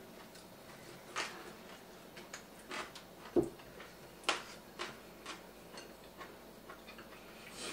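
Irregular light clicks and taps of chopsticks against ceramic bowls and plates during a meal, mixed with eating mouth sounds, and one duller knock about three and a half seconds in.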